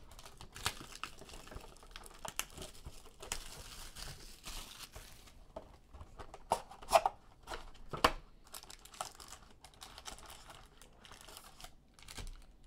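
A cardboard trading-card box being torn open by hand and its foil-wrapped packs pulled out: tearing and crinkling with sharp snaps of cardboard, and a longer rustling tear about three seconds in.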